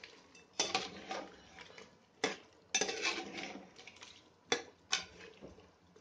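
Metal spoon stirring mutton and nut paste in an aluminium pressure cooker, clinking and scraping against the pot about once a second.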